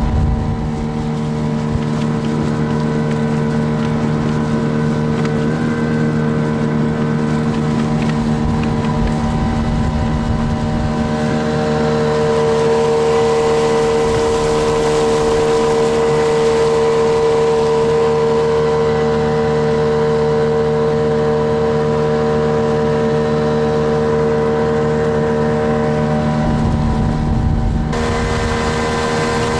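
Small outboard motor pushing an inflatable boat along at steady cruising speed: a constant droning engine note over the hiss of water from the wake.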